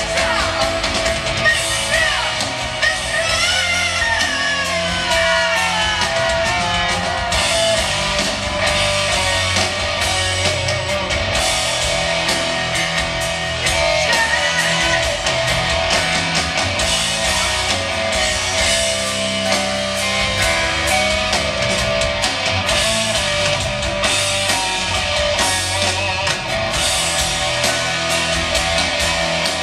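Rock band playing live, with guitars, drums and keyboards and a woman's voice singing over them, heard from the audience. In the first few seconds there are gliding, falling high notes.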